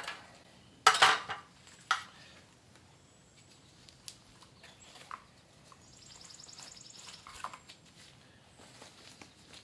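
Small containers and a stirring stick being handled while thickener is added to mixed epoxy. There is a loud clatter about a second in, then a sharper knock, a few light taps, and a soft rapid scraping near the middle.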